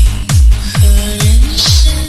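Electronic dance music in the style of a Chinese car-stereo DJ dance mix, with a heavy kick drum on every beat, about two a second, over a sliding bass line.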